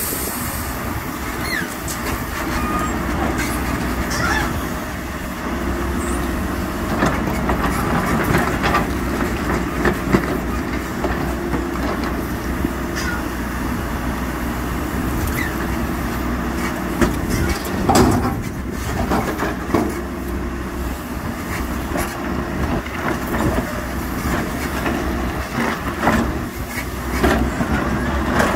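Diesel engine of a construction machine running steadily, with scattered knocks and rattles over it, a stronger one about 18 seconds in.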